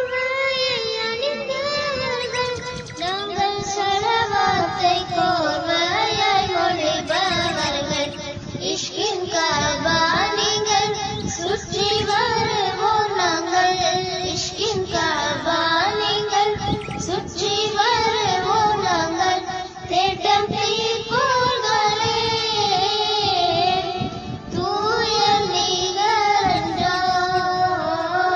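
A child's voice singing a melodic song with instrumental accompaniment.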